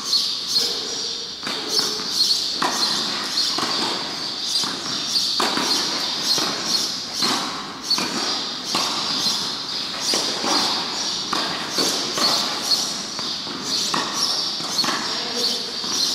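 Tennis rally: racket strings hitting the ball and the ball bouncing on the clay court, a sharp pop every second or so, with shoes scuffing on the clay, over a steady high hiss.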